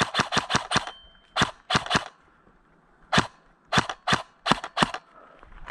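Airsoft gun shots: a fast string of sharp cracks at about eight a second ends a second in. Two more shots follow, then five spaced single shots in the second half.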